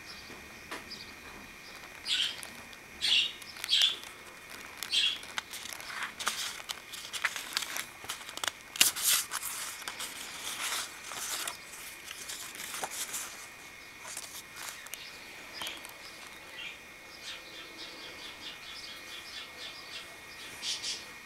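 Cardstock pages and recipe cards of a spiral-bound handmade recipe book rustling and flapping as they are handled and turned, in irregular bursts.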